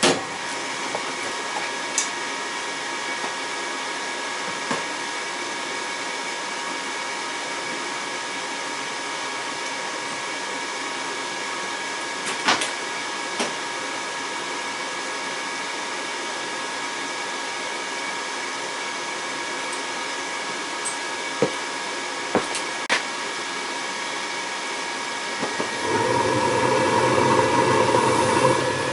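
Gas furnace running: a steady motor hum with a high whine, broken by a few sharp clicks. A few seconds before the end a louder, deeper rushing sound sets in on top of it.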